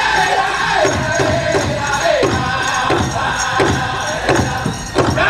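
Powwow drum group singing a chicken dance song, the voices falling in pitch phrase by phrase over a steady beat on the big drum, with bells jingling along.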